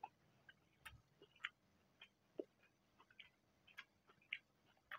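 Faint, scattered, irregular mouth clicks of someone chewing a mouthful of biryani rice with the mouth closed, picked up close by a clip-on microphone.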